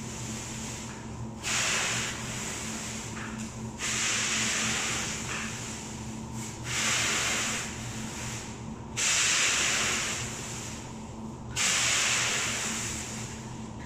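Pre-stretch plastic film unwinding from a hand-held roll as it is pulled around a pallet load, a hissing, rubbing noise that comes five times, each about two seconds long. A steady low hum runs underneath.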